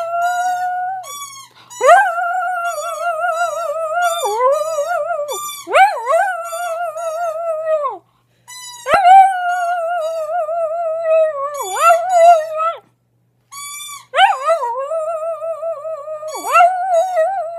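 Small terrier howling in long wavering notes, each sliding up at its start, with short breaks about a second and a half in, around the middle, and again a few seconds later.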